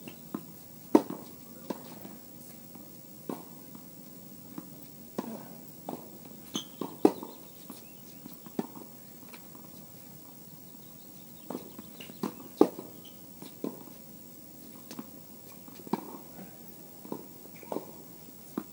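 Tennis rally: rackets striking the ball and the ball bouncing, a string of sharp pops at uneven intervals. The loudest hits come about a second in, about seven seconds in and about two-thirds of the way through.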